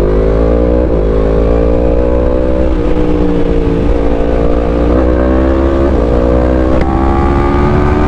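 Yamaha MT-10's crossplane inline-four with an Akrapovic exhaust under full-throttle acceleration. The engine note climbs steadily through each gear, with a brief dip at each of several quick upshifts about a second apart, over a steady low rush of wind.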